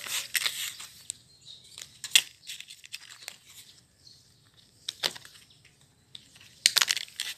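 Plastic rustling and clicking from a toy dragon's flapping wings as it is handled, coming in a few short crackly bursts.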